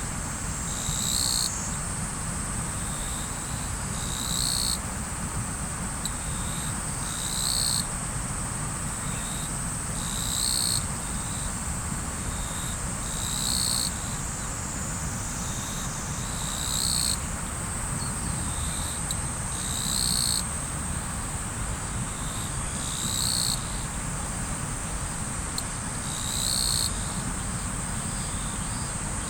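River water flowing steadily, with insects trilling continuously in a high band. Over it, a short high-pitched call repeats about every three seconds.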